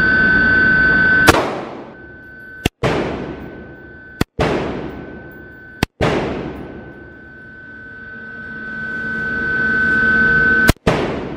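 Gunshots fired on an indoor shooting range, very loud: four shots about a second and a half apart, then a fifth near the end. Each shot is followed by a long echoing tail, with a steady hum between them.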